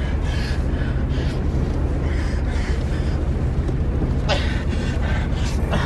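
Inside a moving car: a steady low rumble of engine and road noise, with a few short sharp sounds about four seconds in and near the end.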